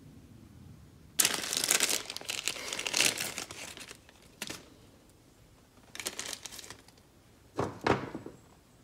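Small clear plastic bag of fuel-injector rebuild-kit rubber grommets crinkling as it is handled and its grommets are shaken out into a hand. The bursts come in bunches: a long stretch of rustling about a second in, then shorter bursts past the middle and near the end.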